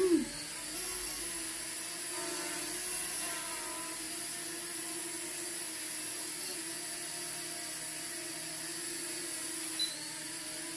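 Holy Stone HS340 mini quadcopter hovering: its brushed motors and propellers make a steady, high buzzing hum. The freshly replaced motor is running normally alongside the others.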